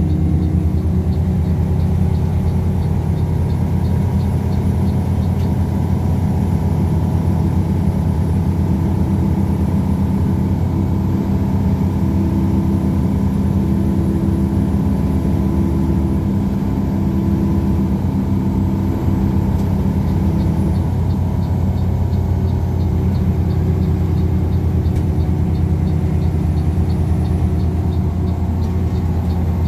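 Front-mounted diesel engine of a coach, heard from inside the passenger cabin while driving: a loud, steady hum whose note shifts a little past the middle as the speed changes. A faint rapid ticking comes and goes near the start and the end.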